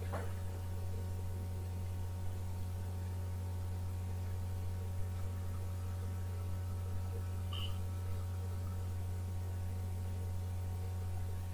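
Steady low electrical hum with faint room tone, unchanging throughout.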